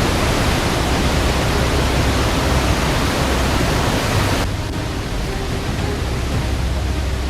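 Dense, steady hiss of heavy rain and running floodwater. It turns a little quieter and duller about four and a half seconds in.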